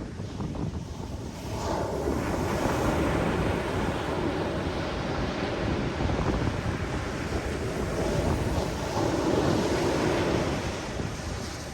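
Ocean surf washing in on the shore, with wind buffeting the microphone. The wash swells louder about two seconds in and again near the end.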